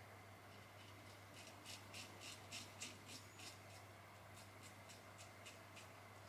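Feather Artist Club SS shavette with a Feather Super Professional blade cutting stubble on the upper lip: a faint run of short, crisp scrapes, about four a second, starting about a second and a half in, then after a brief pause a few more strokes.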